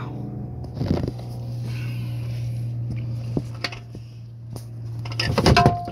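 Scattered knocks and clicks of hands and tools working the canister oil filter housing cap loose under a car, with a louder cluster of knocks near the end as it comes free. A steady low hum runs underneath.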